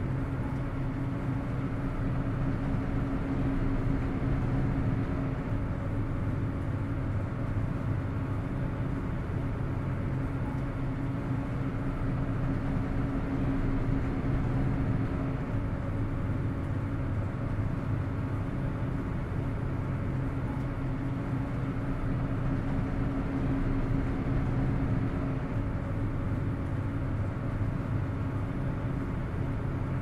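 Ferry engines running: a steady low drone with a constant hum in it.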